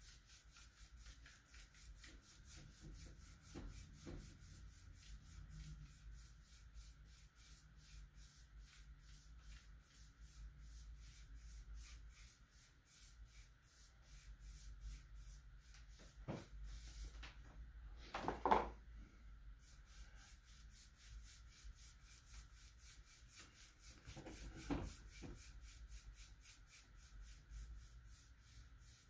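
Faint rubbing of a foam brush dragging dye across a sanded blank wooden skateboard deck, stroke after stroke. A few short knocks, the loudest about two-thirds of the way through.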